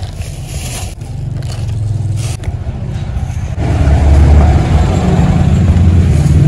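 A motor vehicle's engine running close by in the street, getting much louder about three and a half seconds in, with a plastic bag rustling as eggplants are dropped into it.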